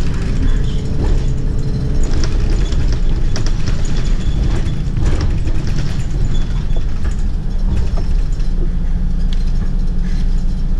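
Inside a city bus on the move: a steady low engine and drivetrain rumble with interior panels and fittings rattling and clicking throughout.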